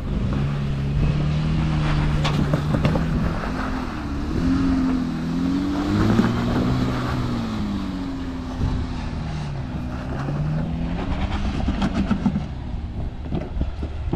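Off-road 4x4's engine working under load, its pitch rising and falling several times as the throttle is fed on and off to crawl over rock ledges, with scattered clicks and knocks.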